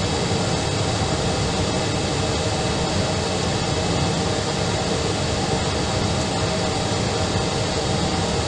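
Steady jet engine and airflow noise of an Airbus airliner in flight, heard inside the passenger cabin, an even rush with a faint constant hum.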